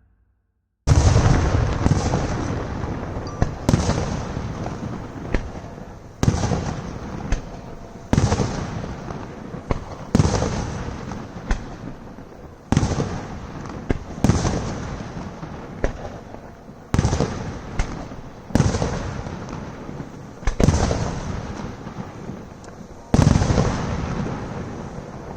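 Fireworks display: loud bangs of exploding fireworks about every two seconds, each one fading away in a long echo. They start abruptly about a second in.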